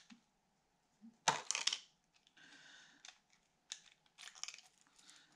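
Clear plastic lure packaging crinkling and clicking as it is pulled apart by hand to free a fishing lure, with the loudest crackle about a second and a half in and a scatter of smaller clicks after.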